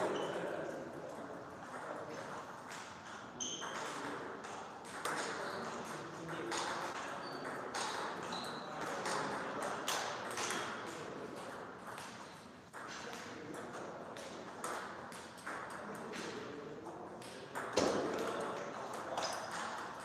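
Table tennis ball clicking off the table and the bats in quick exchanges, each click with a brief ping, with short gaps between points.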